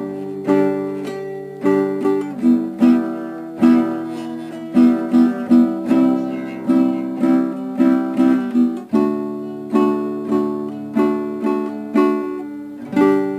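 Music on a plucked string instrument such as a guitar: notes and chords are picked about two a second, each ringing and then fading.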